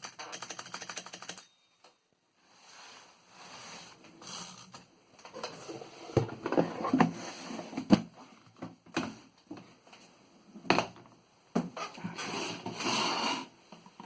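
Mechanism of a 1924 Underwood 3-bank portable typewriter being worked: a quick run of fine clicks at first, then after a short pause single sharp clacks mixed with noisier mechanical handling sounds.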